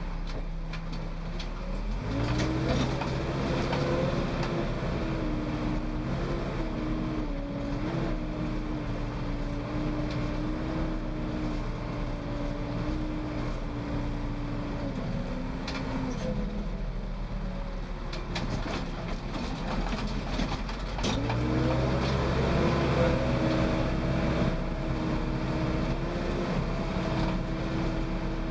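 Case 580L backhoe's turbocharged four-cylinder diesel engine under way. It revs up about two seconds in and holds with small rises and dips in pitch. It drops back to a lower speed around the middle, then revs up again and holds for the rest.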